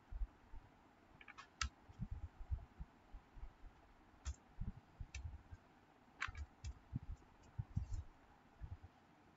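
Faint, sparse keystrokes on a computer keyboard: a few separate key clicks in small clusters, with soft low thumps between them.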